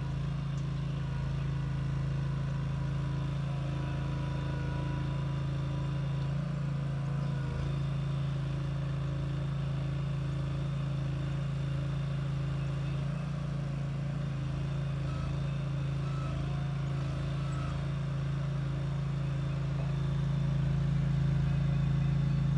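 Engine of a modified ride-on mower running steadily, a constant low hum, getting a little louder near the end.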